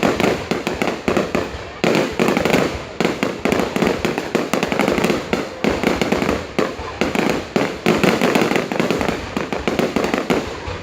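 Fireworks going off in a dense, continuous barrage of sharp pops and crackles, easing off briefly a few times before picking up again.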